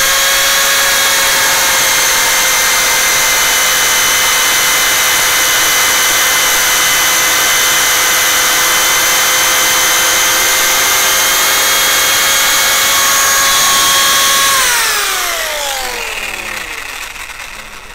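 Parkside PSTK 800 C3 800 W jigsaw cutting through a wooden batten with its pendulum action switched off. The motor spins up at the start, then runs at a steady high whine with the blade rasping through the wood. About 15 seconds in it is switched off, and its pitch falls as the motor winds down.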